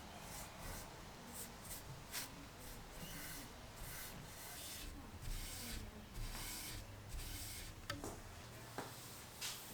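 Soft paste wax being rubbed onto a wooden tabletop: a series of faint, irregular rubbing strokes, with a couple of light ticks near the end.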